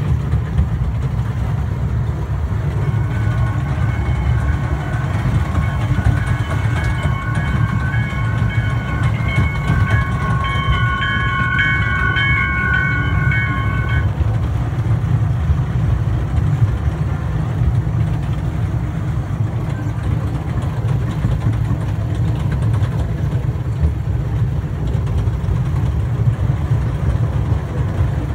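A kiddie train ride running along, with a steady low rumble throughout. From about three seconds in until about halfway through, high ringing tones sound, then stop.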